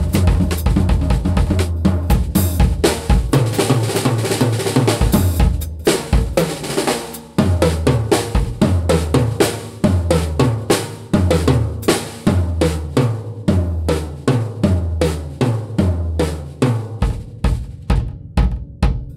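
Mapex VX drum kit in low tuning on its stock factory heads, played as a full groove of bass drum, snare, toms and cymbals. It is busy and fill-heavy for the first several seconds, then settles into a steadier beat with deep, booming low drums about seven seconds in.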